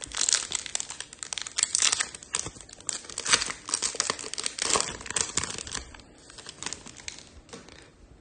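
Trading-card pack wrapper being torn open and crinkled by hand, a dense crackling that thins out about six seconds in.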